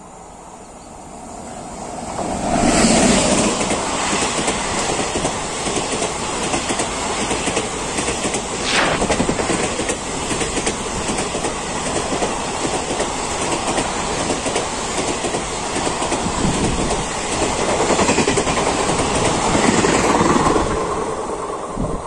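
An express passenger train hauled by a WAP-7 electric locomotive passes at about 100 km/h. It swells quickly as the locomotive goes by about two to three seconds in. Then comes a long, steady rush of coaches clattering over the rails, which fades only near the end as the last coach passes.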